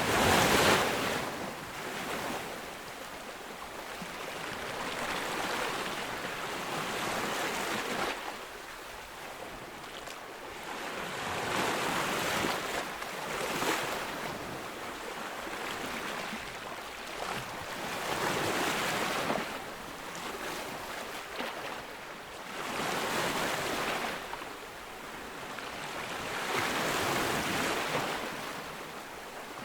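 Ocean surf breaking on a beach: wave after wave swells up and washes back every few seconds, the loudest crash right at the start.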